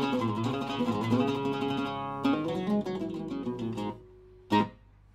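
Syrian-style oud with a cedar soundboard, picked solo: a run of fast notes, then slower single notes and a held note dying away, and one last sharp pluck about four and a half seconds in.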